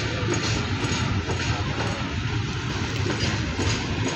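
Freight train of covered goods wagons rolling past on the track: steady wheel-on-rail running noise with a faint, repeated clacking of the wheels.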